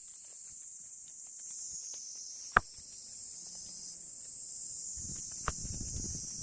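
Sharp knocks of wood on wood as firewood is handled and stacked: one loud knock about two and a half seconds in and a lighter one near the end, over a steady high chorus of insects. A low rumble begins about five seconds in.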